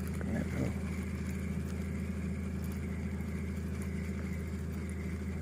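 A small engine running steadily at idle: an unchanging low hum with a fainter steady high whine above it.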